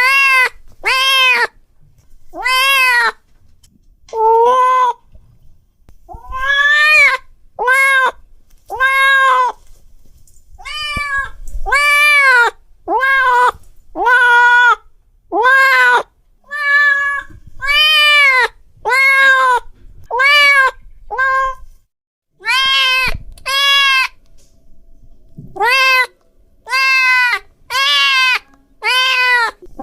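Domestic cat meowing loudly over and over, more than twenty drawn-out calls about a second apart, each rising then falling in pitch, with a few brief pauses.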